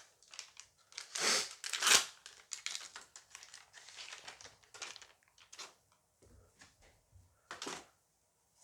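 Dice Masters booster pack wrapper being torn open and crinkled in the hands, with the loudest rips about a second and two seconds in, smaller rustles after, and one more crinkle near the end.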